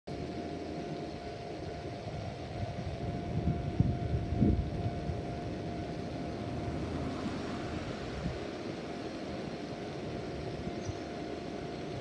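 Ikoma Cable funicular car approaching along its track: a steady hum over a low rumble, with a few louder low surges between three and five seconds in.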